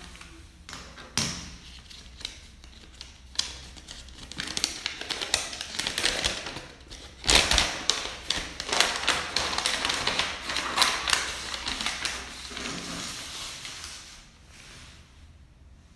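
Leatherman Charge TTI multi-tool being handled, its folding tools worked open and closed: a run of quick clicks and taps, busiest in the middle and loudest about seven seconds in, fading out near the end.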